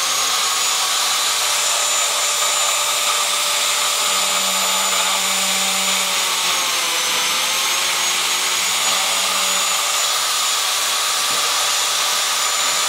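TOTAL biscuit jointer motor running at full speed with a steady high whine. Its spinning blade plunges into a wooden block to cut a biscuit slot. The cutting adds a lower growl from about four to ten seconds in, and the whine's pitch sags slightly under load partway through.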